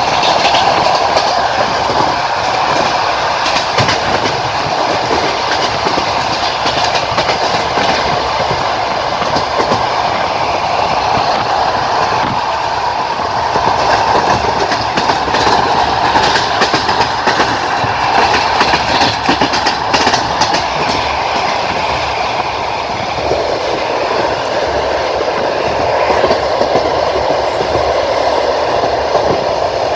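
Passenger train wheels rolling on the rails, heard from aboard the train: a steady rumble broken by the irregular clickety-clack of the wheels striking rail joints.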